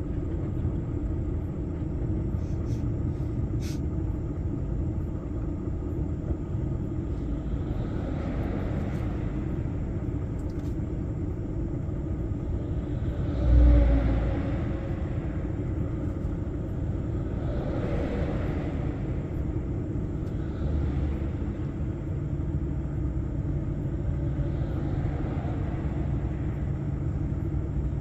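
Steady low rumble of a lorry driving, heard inside the cab. Passing traffic swells up and fades away several times, and a loud low thump comes about halfway through.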